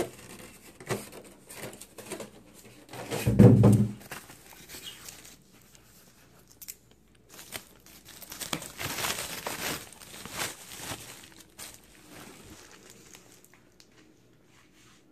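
Plastic wrapping bag from a monitor stand crinkling and rustling in spurts as it is handled. There is a loud dull thump about three and a half seconds in, and the rustling dies down over the last couple of seconds.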